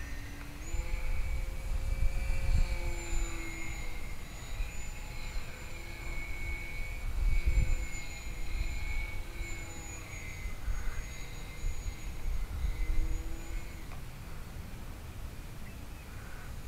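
Scorpion brushless motor and propeller of an RC flying wing whining in flight overhead, the pitch wavering up and down with throttle and distance, over a gusty low rumble of wind on the microphone. The pilot takes the motor's sound for a bad bearing.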